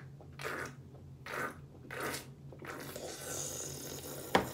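A person eating close to the microphone: a few short wet chewing and mouth noises over a steady low hum, then a hiss and one sharp click near the end.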